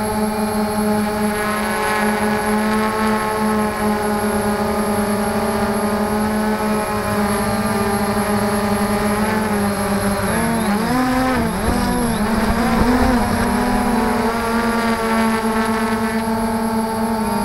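Quadcopter drone's electric motors and propellers whining at a steady pitch. Partway through, the pitches waver up and down as the motors change speed, then settle again.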